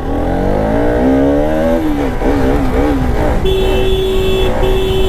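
Motorcycle engine revving as the bike pulls away, rising in pitch for about two seconds, then dropping and wavering up and down. About three and a half seconds in, a steady tone sets in, breaks off briefly, and sounds again.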